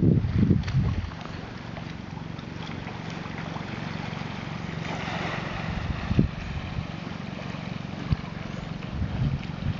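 Wind buffeting the microphone in low gusts during the first second and again near the end, over a steady wash of small waves on the beach. A couple of brief knocks come about six and eight seconds in.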